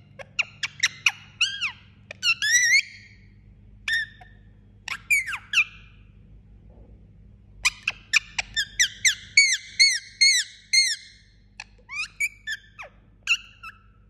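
Indian ringneck parakeet, drowsy with its eyes half closed, making soft squeaky chirps and chatter: short calls that sweep up and down in pitch, in clusters, with a pause about halfway and then a quick run of chirps.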